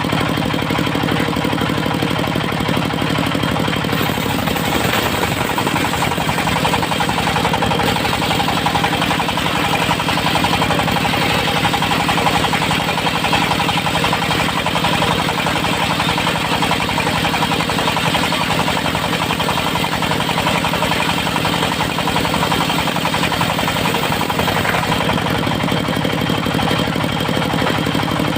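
Engine-driven circular sawmill running steadily. A few seconds in, the sound turns rougher and noisier as the blade cuts through teak, then it settles back to a steadier run near the end.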